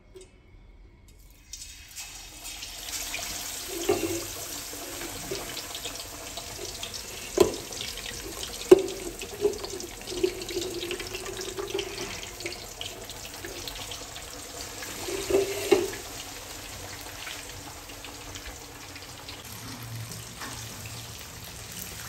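Batter-coated baam fish frying in hot ghee: a steady sizzle and crackle that starts about two seconds in, with a couple of sharp knocks partway through.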